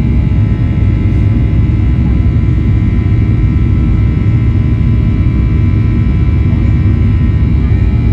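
Boeing 737-800's CFM56-7B jet engines heard from inside the cabin, running steadily under power: a heavy low rumble with a buzzing made of many steady tones over it, the fan's buzzsaw sound.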